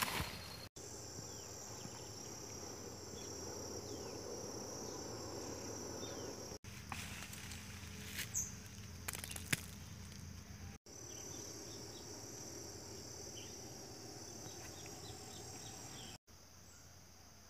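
Insects chirring steadily in a high, even band. It breaks off for an instant at several cuts, and there are a few sharp clicks in the middle.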